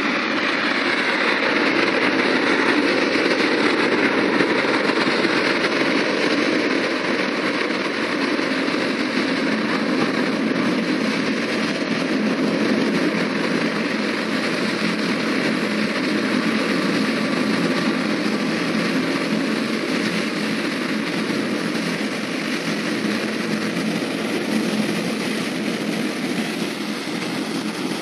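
Zubr-class air-cushion landing hovercraft running close by: its gas turbines and three large ducted propellers make a loud, steady roar, with the hiss of spray blown up by its air cushion, as it comes in over the shallows and up onto the beach.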